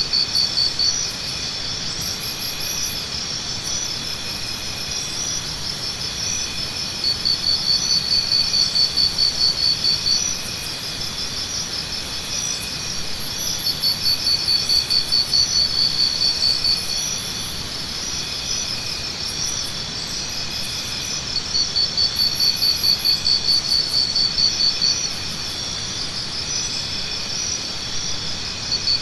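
Jungle insect chorus: several steady high trills, with one louder pulsing trill of about five beats a second that swells in for about three seconds, roughly every seven seconds.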